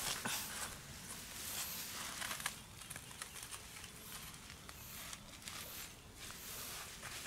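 Hands scraping and pressing loose, dry soil, a soft rustling broken by a few small clicks of crumbling clods.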